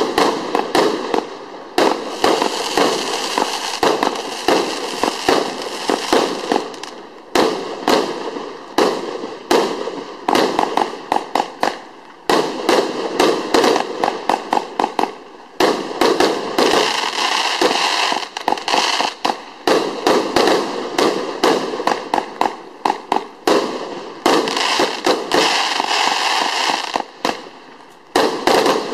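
A 120-shot compound fireworks cake with 31 mm and 25 mm tubes firing in a rapid run of shots. The launches and air bursts come several a second, with crackling between them and a few brief pauses.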